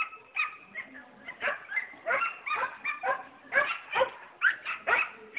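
Border collie giving a rapid string of short, high yips and barks, about three a second, without a break.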